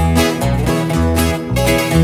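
Instrumental break of a Mexican regional song played live on a strummed twelve-string acoustic guitar and a second acoustic guitar, with an electric bass playing notes about twice a second; no singing.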